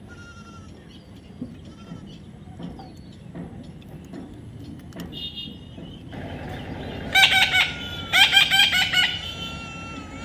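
Loud bird calls, a short one about seven seconds in and a longer wavering one about a second later, over faint chirping.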